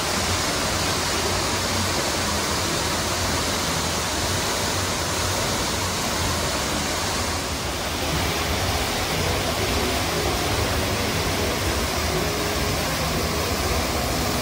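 Man-made waterfall cascading down rockwork into a pool: a steady rushing of falling water.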